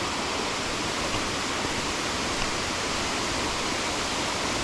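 Steady rush of water from a waterfall on a mountain stream.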